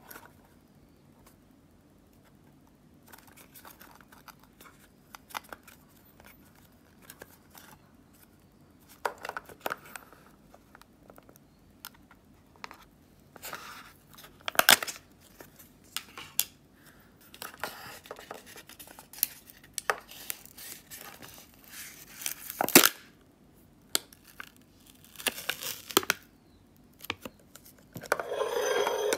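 Opening a can of Pringles by hand: intermittent crinkling, clicks and tearing as the plastic lid is pried off and the foil peel-off seal is torn away, with a longer, louder rustle near the end.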